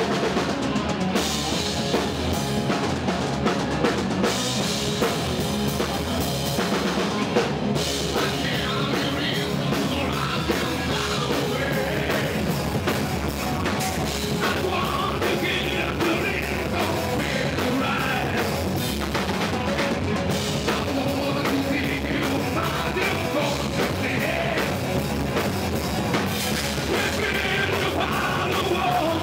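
Stoner rock band playing live: electric guitar and drum kit, with vocals.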